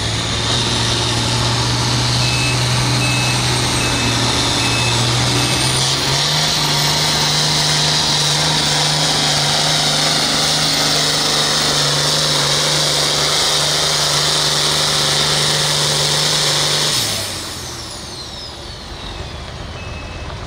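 John Deere 6030 pulling tractor's turbocharged diesel running wide open under load as it drags the sled; its pitch steps up about six seconds in and holds. Near the end the throttle is cut and the engine and turbo wind down, leaving a high, steady reversing-alarm beep.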